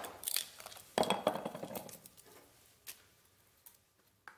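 GRIP 1.25 lb fiberglass camping hatchet splitting thin sticks of kindling on a wooden stump: a sharp chop about a second in, among the light clatter of wooden splinters, then a few scattered soft knocks.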